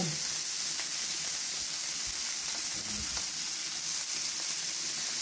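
Minced-beef smash burger patties sizzling on a hot flat-top griddle: a steady, high frying hiss.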